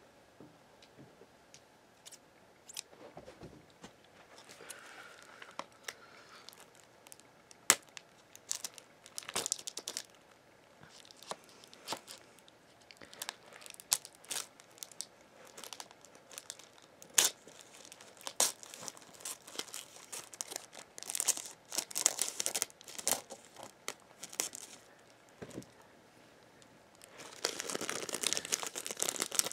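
Thin plastic shrink wrap on a DVD case being cut with scissors and torn and peeled off by hand: scattered sharp snips and clicks with crinkling and tearing, growing into a denser run of crinkling near the end.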